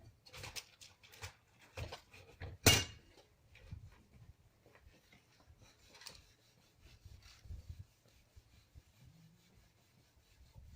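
Scattered knocks, clinks and rubbing from things being handled, with one sharp knock about two and a half seconds in.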